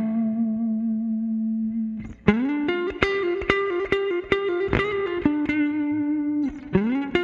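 Fender electric guitar playing a lead phrase: a note bent up into a long held note, then after a short break about two seconds in, quick picked notes and further bends up into sustained notes, with another bend near the end.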